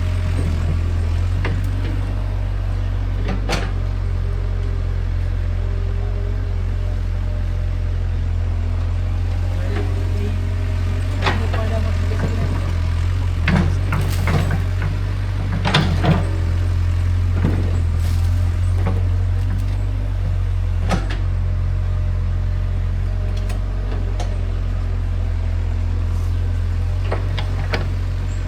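Heavy construction machine's engine running steadily with a low drone, with scattered knocks and clanks from the work every few seconds.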